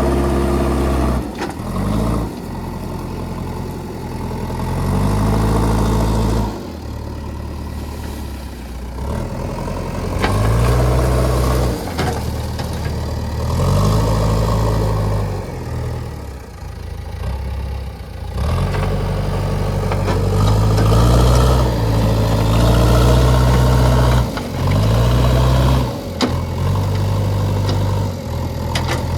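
JCB 3DX backhoe loader's diesel engine running and repeatedly revving up and falling back as the hydraulics take load, with a few sharp metallic knocks in between.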